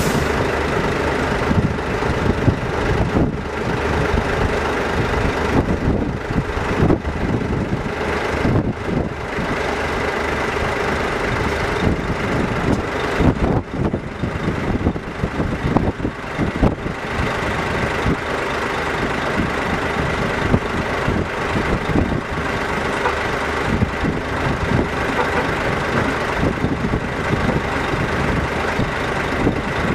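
Heavy diesel machinery of a sugar-beet cleaner-loader and the lorry it is filling, running steadily while beets are loaded, with irregular clatter mixed in.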